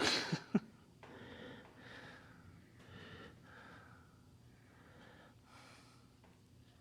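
A short, sharp breath close to the microphone right at the start, then only faint, quiet sounds.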